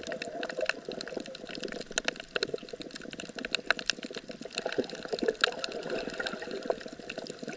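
Underwater sound in the sea: water movement with a dense, irregular crackle of many small clicks.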